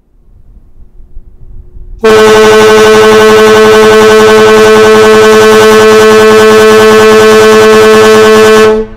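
The MV Puyallup's ship whistle sounding one long, steady blast of nearly seven seconds, loud and close. It starts about two seconds in and cuts off sharply near the end. It is the fog signal of a power-driven ferry under way in fog.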